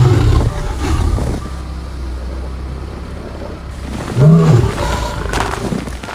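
Big cat growling low and steadily, with one loud, short call about four seconds in that rises and falls in pitch.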